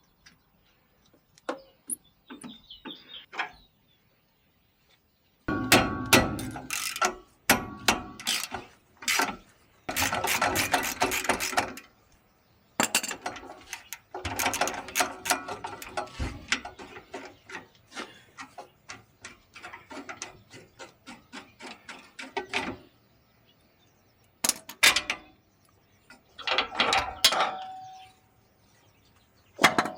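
Hand ratchet wrench clicking in runs, mixed with metal clanks and knocks of tools and parts. The longest run of fast, even clicking comes about halfway through.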